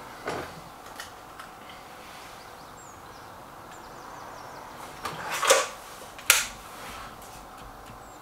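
Stoeger RX20 S2 Suppressor break-barrel air rifle being handled and fired at knockdown targets. A few faint clicks come early, then about five seconds in a louder rising noise is followed by a single sharp crack.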